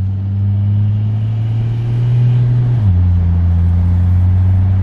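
Ford Falcon XR6 Turbo's turbocharged straight-six heard from inside the cabin while driving, its note rising slowly under light acceleration, then stepping down in pitch about three seconds in as the car changes up a gear, and holding steady after that.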